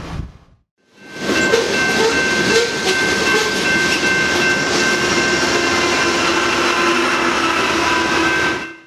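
Train going by: a steady rumble and rail noise with a few held tones over it. It comes in about a second in and stops just before the end.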